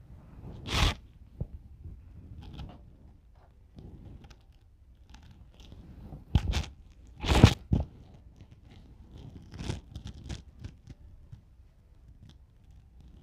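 Scattered rustling and scraping, broken by several sharp knocks, the loudest about seven seconds in.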